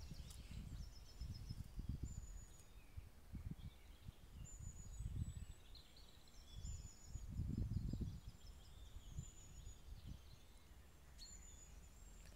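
Woodland songbirds singing: repeated high chirps and trills, over low rumbles on the microphone, the strongest a little past the middle.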